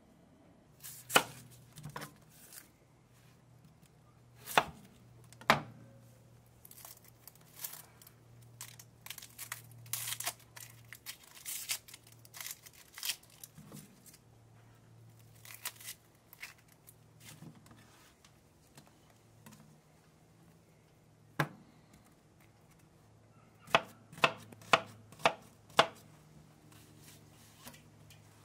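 Chef's knife chopping an onion on a plastic cutting board: sharp knocks of the blade striking the board, a middle stretch of quieter crackling and rustling, and a quick run of five chops near the end.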